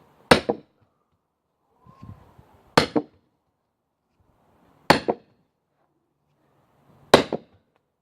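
A sledgehammer strikes a steel wood-grenade splitting wedge set in a hard beech log four times, about two seconds apart. Each blow is a sharp metallic clang with a quick second knock, as the wedge is driven into wood that has not yet split.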